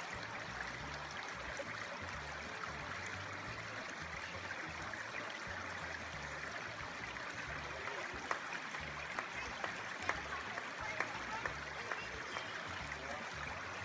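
Rainforest creek running over rocks, a steady rushing of water, with a few light knocks in the second half.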